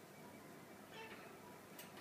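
Near silence: quiet room tone with a faint click near the end.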